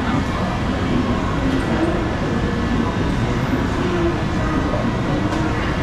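Steady din of a busy indoor food market: indistinct crowd chatter blended with the constant hum of fans and stall equipment into an even rumble.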